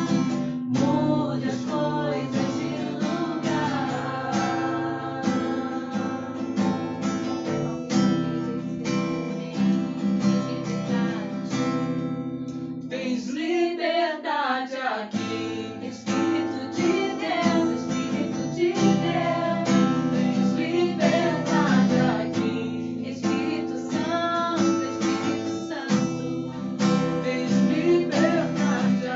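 Christian worship song: strummed acoustic guitar accompanying singing. The low accompaniment drops out briefly about halfway through while the voice glides, then comes back.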